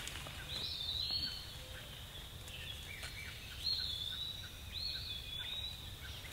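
A songbird singing several high, sliding whistled phrases in the woods, over a steady low rumble.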